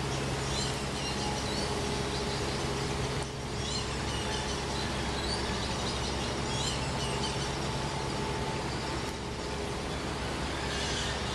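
Steady background hum with a low drone, with bird calls chirping in short high bursts every second or two over it.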